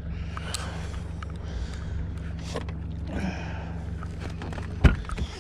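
Boat motor running steadily at trolling speed, a low even hum, under soft rustling from handling a netted trout. A single sharp knock near the end.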